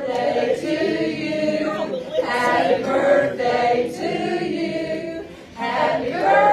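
A group of people singing together, in phrases of a second or two with a brief pause about five and a half seconds in.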